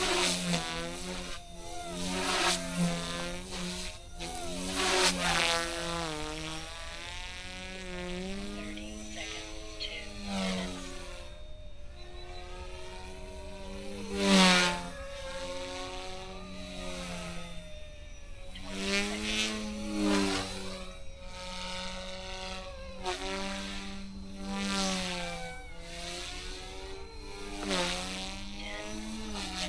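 Eachine E120S electric RC helicopter in flight: a buzzing whine from its motor and rotor, its pitch bending up and down as it manoeuvres, with repeated louder swells, the loudest about halfway through.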